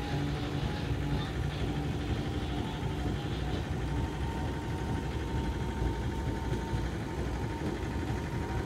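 Small engine of a train-mounted herbicide sprayer rig running steadily, over the low rumble of the work train rolling along the track.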